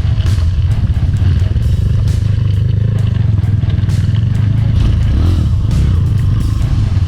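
Trail motorcycle engine running at a steady low pitch while ridden off-road, with scattered knocks and rattles over the rough track.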